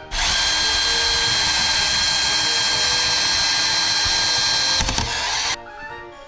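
Power drill boring through wood floor and wall framing with a long bit, running at a steady high whine for about five seconds, then stopping suddenly. Faint background music underneath.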